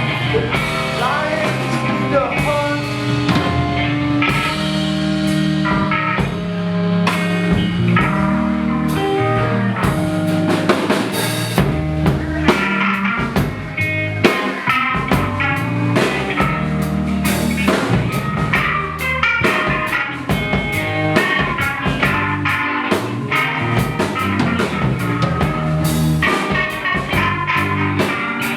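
Rock band playing an instrumental passage: electric guitar with bass and a drum kit keeping a steady beat, no vocals.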